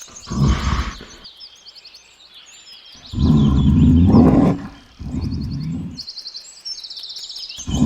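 A large animal growling in three rough, low bursts of about one to one and a half seconds each, over a steady background of birds chirping.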